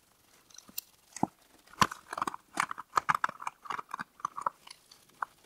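Steel vise handle being worked by gloved hands and a cloth in a plastic tub of cold bluing solution: an irregular run of small wet clicks, squelches and rubbing, with a couple of sharper knocks against the plastic tub in the first two seconds.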